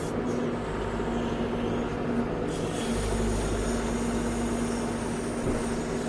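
Caterpillar backhoe loader running steadily at working throttle while the hydraulic boom, stick and bucket are worked to dump dirt and swing back for the next cut. The low rumble gets heavier about three seconds in.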